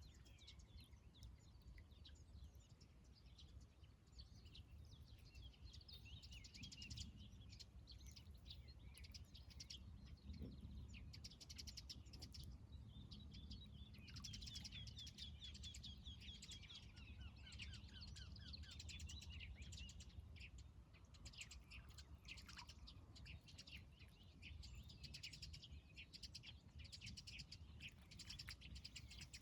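Faint dawn chorus of several small songbirds chirping and trilling, with rapid repeated-note trills overlapping. A steady low rumble runs underneath.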